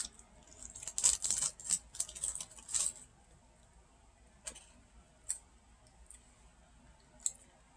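A paper napkin crinkling and rustling in the hands for about two seconds, followed by a few faint light clicks.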